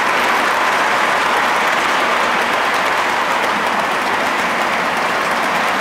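Wheels of O-gauge three-rail model flatcars carrying truck trailers rolling over the track close by: a steady, even rolling clatter.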